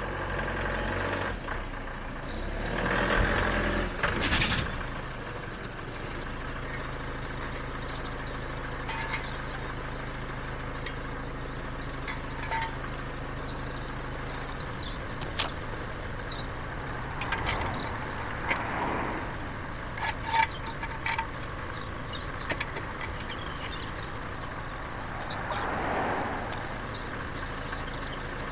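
A vehicle engine running steadily, with a louder rushing swell about three seconds in. The hum fades out about halfway, and a few short knocks and milder swells follow.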